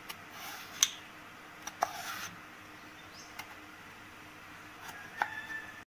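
Kitchen knife cutting raw potato slices into strips on a plastic cutting board: several short, sharp taps as the blade goes through and meets the board, the loudest a little under a second in and about two seconds in.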